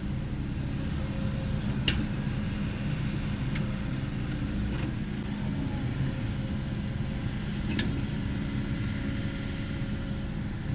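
Kobelco SK75 excavator's diesel engine running steadily as it works, with two sharp knocks, about two seconds in and near the end.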